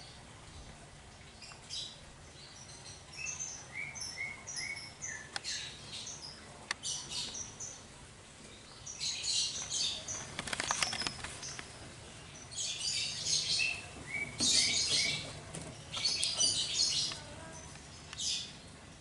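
Small birds chirping in repeated bursts of quick high notes, with a few sharp clicks around the middle.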